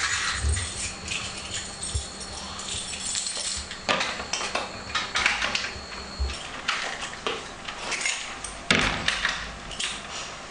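Irregular metallic clattering and knocks as a door and a metal grille gate are handled, with a faint steady high whine until about six seconds in.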